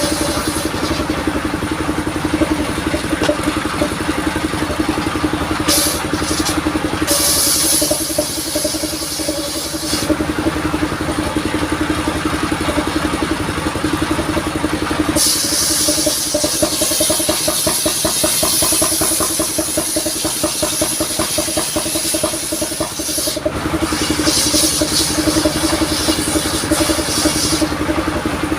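Engine of a modified mobile saw rig running steadily, with stretches of high-pitched hissing that start and stop sharply as the saw cuts coconut wood, the longest lasting about eight seconds from around halfway through.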